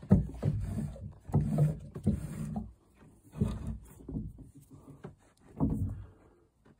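Irregular low knocks and rubbing, in about six separate bursts, from hand work around a sailboat's centreboard winch and its wire.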